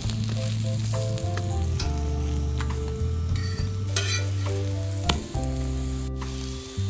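Stuffed radish parathas sizzling in oil on a large flat griddle, a steady frying hiss with a few short clicks. Background music with a stepped bass line plays underneath.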